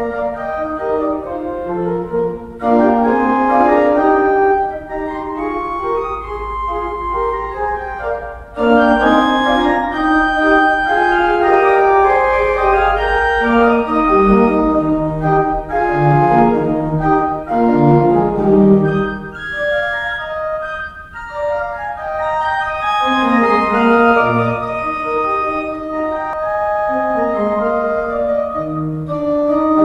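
Pipe organ playing a piece in full, moving chords, with deep pedal notes sounding at times.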